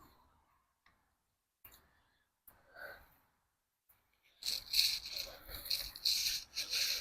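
Near silence for about four seconds, then a run of irregular rustling and scraping noises.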